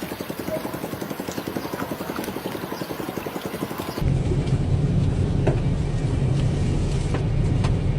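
A motor running with a fast, even pulse. About halfway through, the sound cuts abruptly to a louder, deep, steady rumble.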